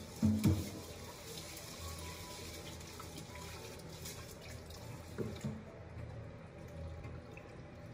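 Water running from a tap into a sink, with two knocks just after the start and another shortly before the water stops, about five and a half seconds in.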